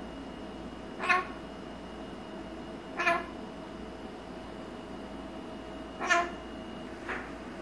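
Blue-crowned conure giving short pitched calls, four in all a second or more apart, the last one fainter, over a steady background hum.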